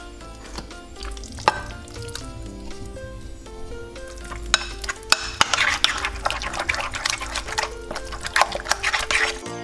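Metal spoon scraping thick blended fish paste out of a plastic chopper bowl, then scraping and stirring it in a ceramic bowl. There are a few sharp clinks early on and dense scraping from about halfway through, over light background music.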